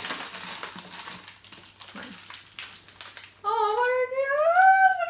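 Crinkling of a small plastic candy packet as it is taken out of the box and handled. Near the end, a loud, drawn-out high-pitched vocal sound rises slowly in pitch, then drops.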